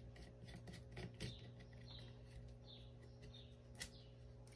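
Near silence: faint clicks of small hand tools and parts being handled while a screw is worked out of a model helicopter frame, the loudest click near the end. Under it runs a steady low hum, with faint high chirps repeating about every two-thirds of a second.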